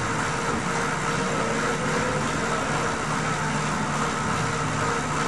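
Bicycle on an indoor trainer whirring steadily as the rider pedals, a continuous hum with a faint steady whine and an even level.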